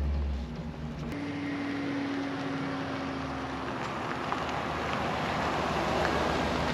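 Pickup truck engine humming. Then the truck drives past towing a camper trailer, its engine and tyre noise growing louder as it approaches.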